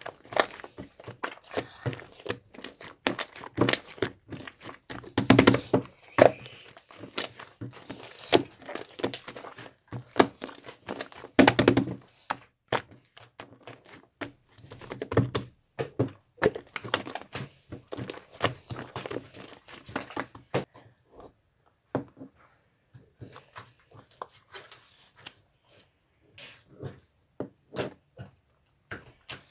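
Slime being handled by hand: a dense, irregular run of small clicks and pops, with louder bouts of squishing about 5 and 11 seconds in, thinning out over the last third.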